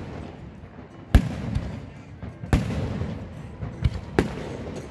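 Aerial fireworks shells bursting overhead: three loud sharp bangs about a second and a half apart, with a few softer pops between them, each followed by a low rumbling echo and crackle.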